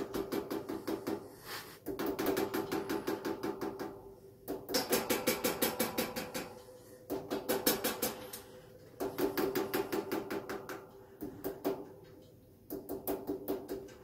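Black-capped lory making repeated bursts of fast rattling clicks, each burst lasting about two seconds with short pauses between.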